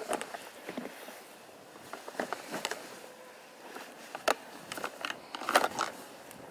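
Hard plastic full-body goose decoys being slid into the slots of a fabric 12-slot decoy bag: scattered light knocks and fabric rustles, with a sharp click about four seconds in and the loudest cluster near the end.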